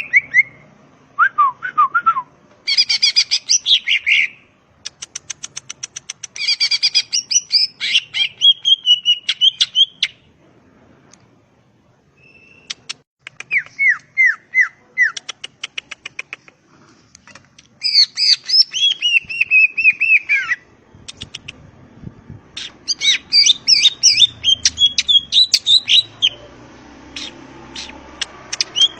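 A green leafbird (cucak ijo) singing in bouts of loud, rapid chattering runs mixed with descending whistled notes, with a few brief pauses between phrases.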